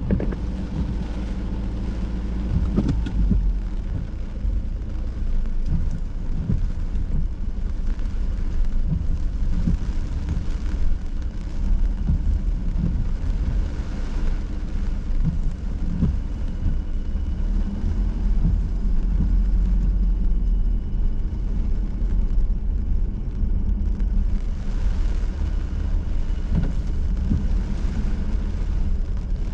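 Inside a car driving in hurricane rain: steady low engine and road rumble, with rain beating on the car and scattered knocks.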